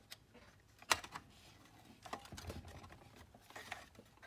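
Light clicks and taps of plastic and sheet-metal parts being handled as wires are pressed into place and the cord storage cover is fitted into a Kodak 760H carousel slide projector's case, with one sharper click about a second in.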